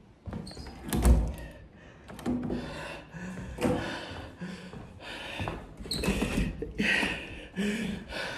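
A loud thump on a wooden cabin door about a second in, followed by several lighter knocks and handling noise.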